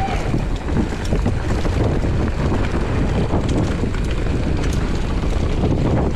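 Wind buffeting the microphone over the rumble of a Giant Trance 29er mountain bike's tyres rolling fast on dry dirt and leaf litter, with many small clicks and rattles from the bike over the rough trail.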